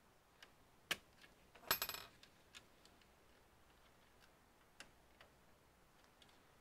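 Small metal parts and tools clicking and clinking during a computer teardown: a sharp click about a second in, then a short metallic rattle with a ringing tone just before two seconds in, followed by a few faint ticks.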